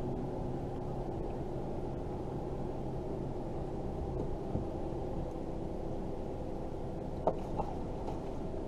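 Boat motor running steadily, a dull muffled hum, with a couple of light clicks about seven seconds in.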